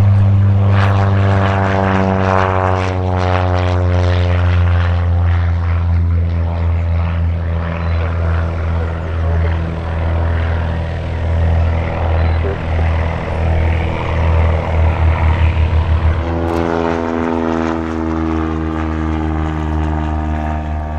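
SIAT 223 Flamingo's four-cylinder Lycoming piston engine and propeller at take-off power, the note falling in pitch as it passes and climbs away and fading. About sixteen seconds in the sound cuts to the same aeroplane flying toward the listener, its engine note steady and louder.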